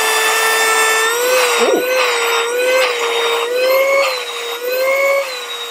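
Small cordless handheld vacuum cleaner running with a steady motor whine. Its pitch wavers up and down slightly as a palm is held over and away from the nozzle to test the suction.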